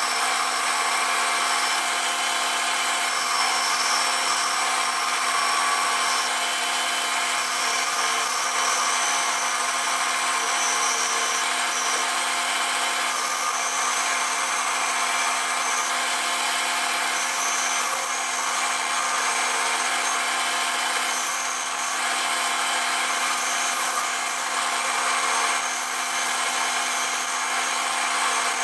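Small benchtop metal lathe running steadily, its chuck spinning while a cutting tool turns down the fitting end of a ramrod, a high cutting hiss coming and going over the motor's steady whine.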